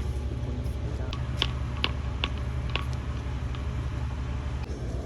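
Steady low hum with four light ticks about half a second apart, starting about a second and a half in.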